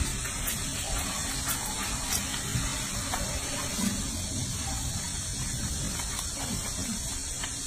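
Soapy water sloshing and splashing in a sink as a young macaque is rubbed and washed by hand, over a steady hiss.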